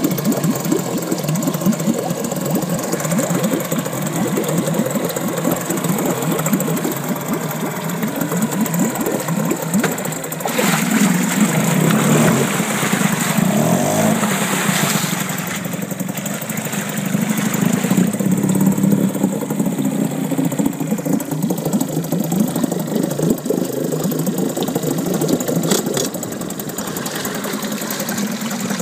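Mariner 4 two-stroke outboard motor running in a test tank of water. From about ten seconds in it runs harder for several seconds with the propeller churning the water, then settles back to a steady idle.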